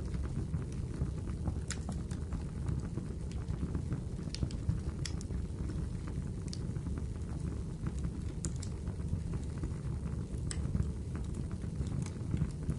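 Wood fire crackling in a fireplace: a steady low rush of flames with sharp pops and snaps every second or so.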